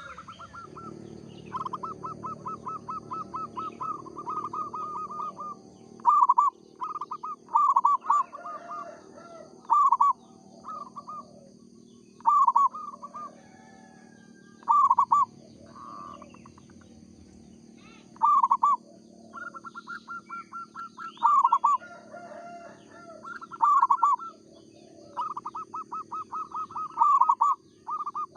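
Zebra dove (perkutut) cooing: quick rippling runs of short notes alternating with loud single coos, repeated again and again.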